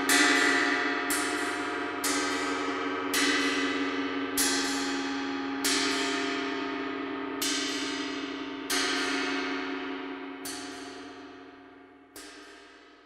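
Ringing metal percussion struck roughly every one to two seconds, each stroke ringing on over a steady sustained tone. The strokes come further apart and the ringing fades out near the end.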